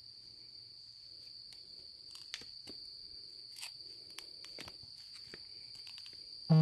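Steady high-pitched chirring of crickets, with scattered faint clicks. Right at the end a loud buzz cuts in: a phone vibrating.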